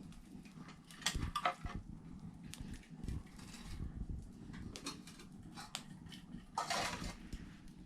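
Pots and utensils clinking and clattering at irregular moments during kitchen work, with a cluster of knocks about a second in and a longer clatter near the end.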